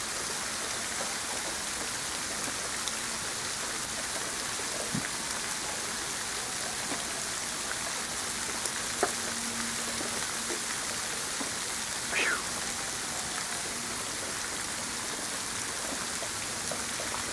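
Freezing rain and sleet falling: a steady hiss, with scattered small ticks of ice pellets hitting.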